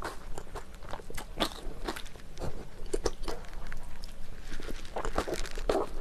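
Close-miked chewing of jjajang rice with crunchy kimchi and cheongyang chili peppers: a steady run of wet mouth clicks and crunches.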